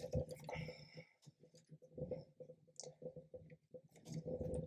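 Faint, scattered small clicks and rustles of hands handling plastic 3D-printer filament, its feed tube and cables.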